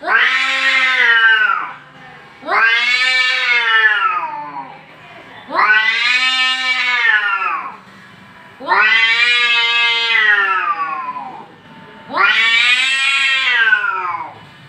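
Angry cat yowling: five long, drawn-out caterwauls, each rising then falling in pitch, with short pauses between them.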